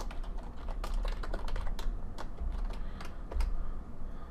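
Typing on a computer keyboard: irregular, quick keystroke clicks over a low steady hum.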